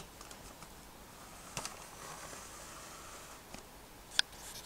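Faint rustling of plastic Duplo toys being handled on a carpet, with two light clicks, the sharper one near the end.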